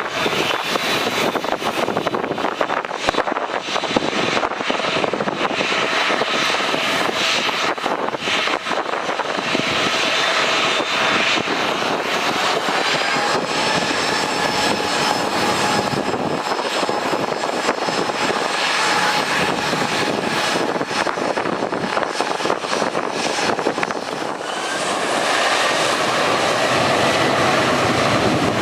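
Jet aircraft engines passing close: a steady rush with a high turbine whine whose pitch slowly shifts. The sound grows louder about 25 seconds in.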